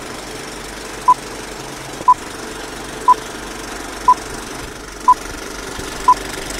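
Six short, identical beeps, one each second, over a steady mechanical rattle: an old-film countdown leader with its projector-style noise.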